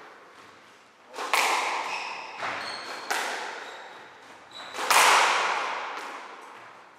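Squash rally: sharp smacks of the racket striking the ball and the ball hitting the walls, each ringing out in the court, four or five in all with the loudest about five seconds in. Brief high squeaks come between the hits.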